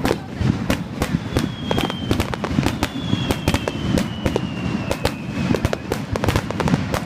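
Aerial fireworks bursting at close range: a dense, rapid run of sharp bangs and crackles, with a faint high whistle slowly falling in pitch across most of it.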